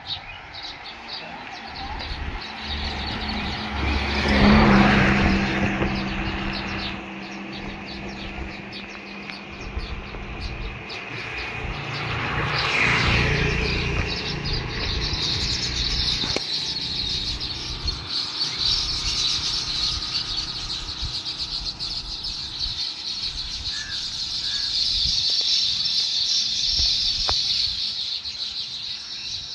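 A colony of baya weaver birds chattering with many high chirps at their nests in a palm tree, busiest in the second half. A motor vehicle passes about four seconds in and another about twelve seconds in.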